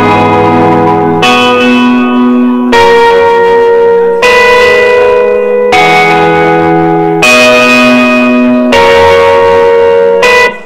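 Loud music of held, ringing chords changing about every one and a half seconds, cutting off abruptly near the end.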